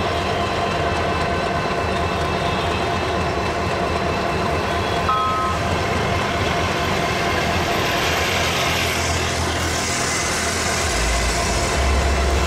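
Diesel locomotive hauling a container freight train slowly over yard tracks, a steady rumble of engine and rolling wagons. A hissing rush comes about eight to ten seconds in, and the low rumble grows deeper near the end.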